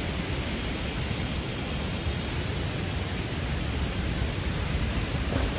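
Steady rushing noise of a rainstorm with gusty wind, with a rumble of wind buffeting low down.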